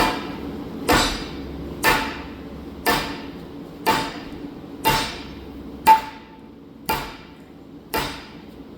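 Steady hammer blows, about one a second and nine in all, each with a short metallic ring, on a forklift hydraulic lift cylinder as the rebuilt piston assembly is driven in through a band-type piston compressor.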